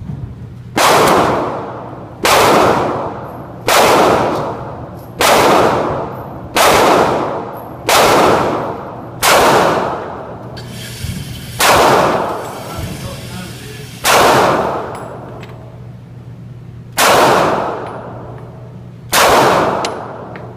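A Glock 42 .380 ACP pocket pistol fired in slow single shots, about eleven in all, spaced roughly one and a half to three seconds apart. Each shot is a sharp report with a short ringing tail.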